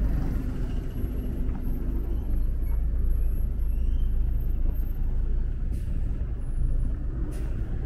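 Steady low rumble of passing vehicles, with no pauses.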